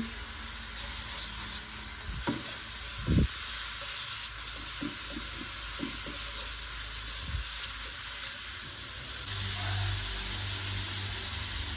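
Blended spice paste with shrimp paste sizzling in a nonstick frying pan as it is stirred with a silicone spatula. A steady frying hiss runs throughout, with a few soft knocks and scrapes of the spatula against the pan, the loudest about three seconds in.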